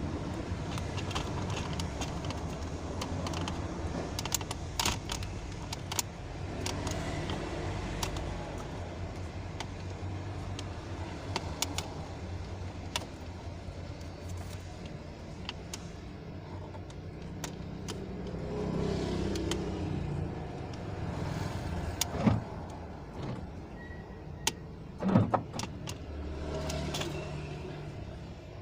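Steady low hum of a car engine running, with scattered light clicks and a few sharper knocks in the second half.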